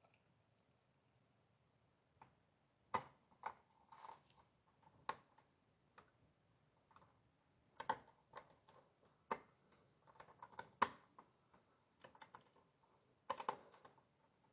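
Faint, irregular small clicks and taps of parts and tools being handled while a Mac mini M4 is reassembled after its SSD swap, a dozen or so light knocks spread out with short quiet gaps between them.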